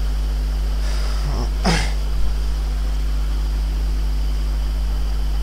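A person briefly clears their throat, about a second and a half in, over a steady low hum.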